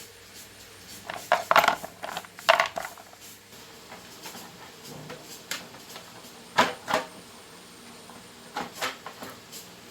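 Scattered clinks and knocks of metal tools and engine parts being handled and set down, in small clusters about a second and a half in, two and a half seconds in, near seven seconds and near nine seconds.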